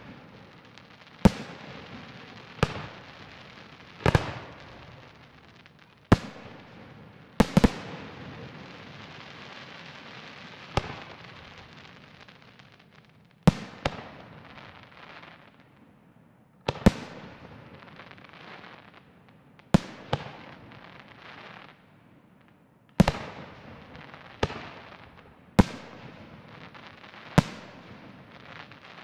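Aerial firework shells bursting overhead: sharp bangs about every one to three seconds, some in quick pairs, each trailing off in echo, with hissing and crackling between bursts.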